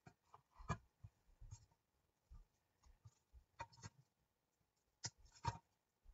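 Light clicks and taps of small craft embellishments being picked up, handled and set onto a mixed-media project, about five sharp ones spread over the few seconds, with soft rustling and near quiet between them.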